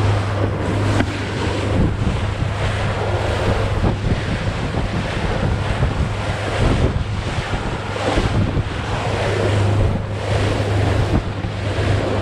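Small boat under way through choppy water: a steady engine drone under the rush and splash of water off the hull, with wind buffeting the microphone in uneven gusts.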